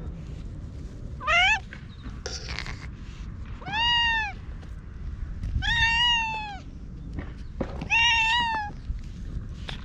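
Orange tabby cat meowing four times: a short rising call, then three longer arched meows.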